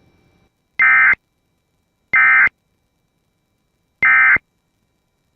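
Emergency Alert System end-of-message code: three short bursts of SAME digital data tones, each about a third of a second long, with one to two seconds between them. They signal that the tornado warning broadcast has ended.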